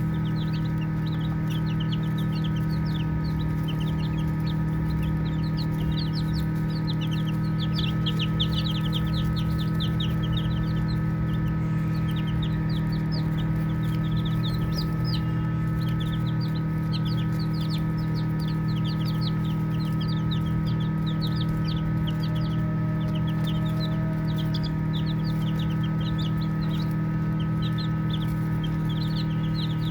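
A group of baby chicks peeping continuously: many short, high-pitched peeps, often several at once, over a steady low hum.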